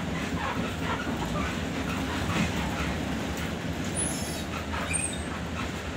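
Bus cabin heard from behind the driver: the engine runs low and steady while the bus rolls slowly, with the interior rattling and clicking. A couple of brief high squeaks come about four and five seconds in.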